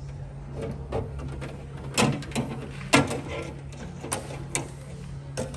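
Irregular clicks and light knocks of a wiring cable being pulled through a grommet and across the tailgate, with two sharper knocks about two and three seconds in, over a steady low hum.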